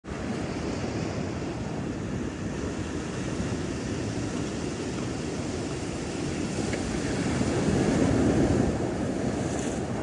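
Pacific Ocean surf breaking and washing over a rocky shore, a steady wash that swells louder with a bigger wave about eight seconds in.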